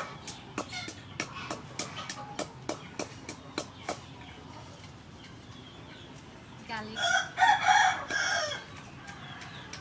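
Wooden pestle pounding chili in a mortar, about three dull knocks a second, stopping about four seconds in. About seven seconds in a rooster crows once, loud, for about a second and a half.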